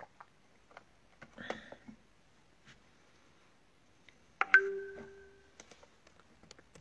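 Faint taps and rustles of a phone being handled. About four and a half seconds in, a sharp knock followed by a short ringing tone that fades within about a second.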